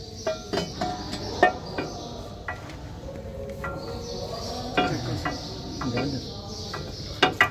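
Scattered metallic clinks and taps from hands working on a truck differential's tapered roller bearings and housing. Several of the clinks ring briefly.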